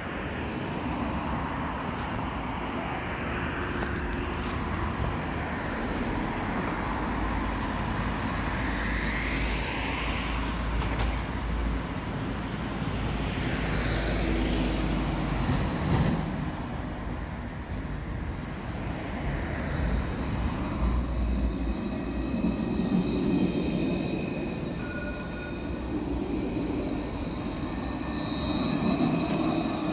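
Alstom Citadis low-floor tram pulling in alongside the platform, with its wheels rumbling on the rails and a steady high whine from about two-thirds of the way in. It is loudest near the end as it passes close by.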